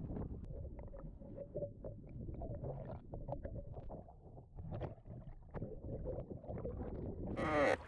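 A currach's oar blade moving through the water: a low churning wash with scattered small pops and clicks of bubbles, and a louder rush of water near the end.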